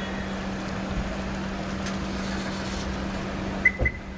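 Steady outdoor background noise with a constant low hum, then two short high beeps in quick succession and a brief knock near the end.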